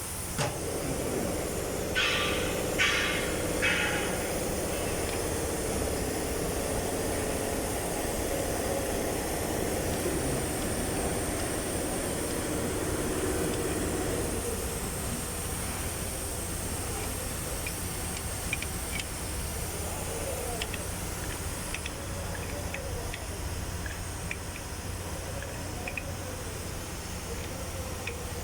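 Mercedes-Benz Actros truck running with its PTO driving a pump: a steady mechanical hum with a droning tone that fades out about halfway through, three short hissing bursts about two seconds in, and faint scattered ticks later on. The noise comes from the PTO drive's cross joint, which the owner says is broken.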